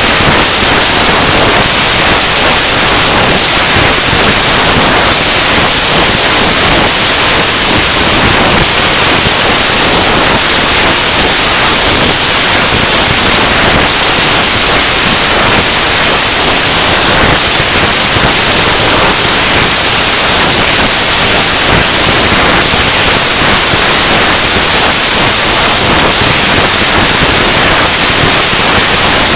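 Harsh noise music: a loud, unbroken wall of hiss, heaviest in the high end, with no pauses or changes.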